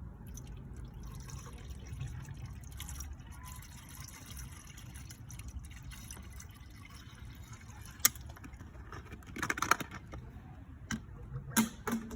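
Antifreeze coolant being poured from a bottle into a car's coolant reservoir, a steady filling trickle, with several sharp knocks in the second half, the loudest about two thirds of the way in.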